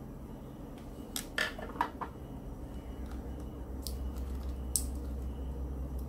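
A few light clicks and taps as hands and a small Phillips screwdriver work inside an open laptop, taking out the SSD's retaining screw. The clicks come in a quick cluster a second or two in, then twice more singly, over a steady low hum.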